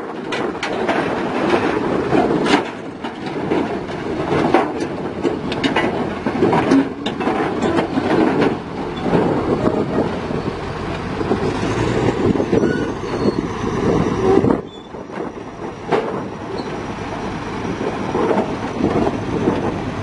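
Komatsu D65PX crawler bulldozer's diesel engine running as the machine crawls off a truck deck and away, its steel tracks clanking continuously. The sound drops suddenly quieter about fifteen seconds in.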